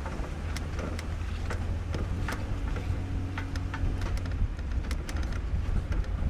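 Jeep driving slowly over a rocky dry riverbed: the engine runs low and steady under scattered sharp clicks and crunches of gravel and stones under the tyres.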